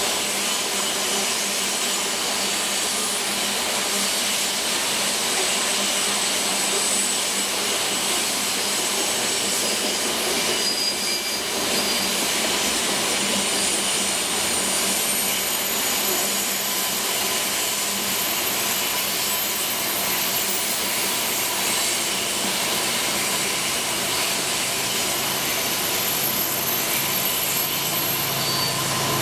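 Steady rolling noise of a long string of covered hopper grain cars passing on a curve, their steel wheels running over the rails, with faint high squeals coming and going.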